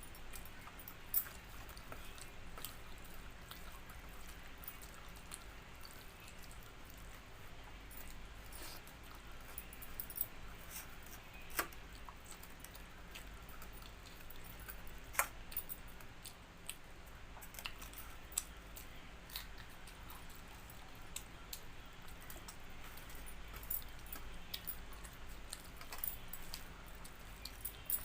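Eating sounds: scattered small clicks and taps of a meal of rice and dal, with faint chewing over a low steady hum, and a few sharper clicks about a second in, near the middle and a little past the middle.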